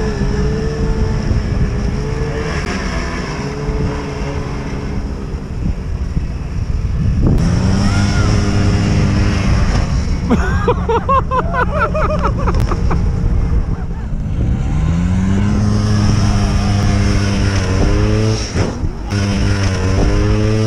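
Snowmobile engines running close by, idling and revved several times, with the pitch sweeping up about seven seconds in, again around fifteen seconds, and a few more times near the end.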